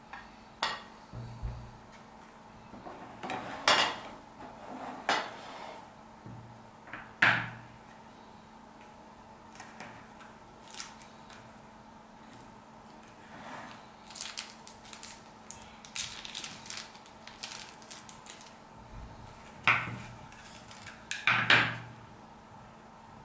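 Small product boxes and packaging handled on a tabletop: scattered clicks, taps and rustles, with a few sharper knocks, as boxes are set down and opened and a small brushless motor and a bag of screws are taken out and handled.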